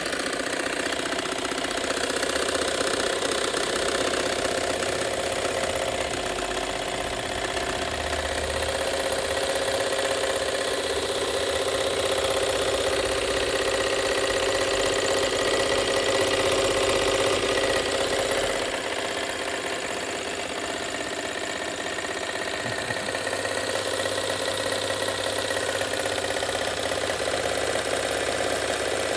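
Electric sewing machine running steadily at one speed, its motor and mechanism clattering, plugged in without the foot rheostat that would make it go slow or fast. The machine has just been cleaned of rust and lubricated with Vaseline and WD-40.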